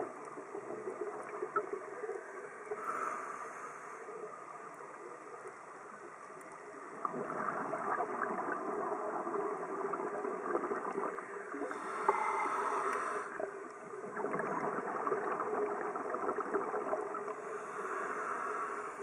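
Underwater bubbling noise from a scuba diver's exhaled breath, muffled by the camera's underwater housing. It comes in uneven surges and grows louder about seven seconds in, with brighter bursts around halfway and near the end.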